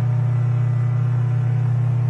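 Car engine's steady low drone near 120 Hz, with faint overtones above it. It is the kind of engine drone that can be mistaken for other noises of the same pitch when tracing a vehicle's vibration.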